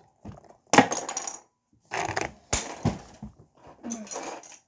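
Plastic Lego bricks clacking and rattling as a Lego puzzle is opened up to show its internals: a string of sharp knocks and clatters, the loudest about three-quarters of a second in.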